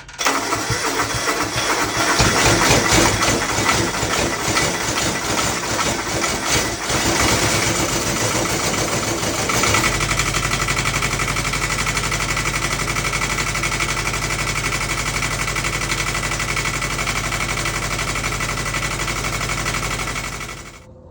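Diesel truck engine starting from cold, running rough and uneven for about ten seconds before settling into a steady idle. The sound cuts off suddenly near the end.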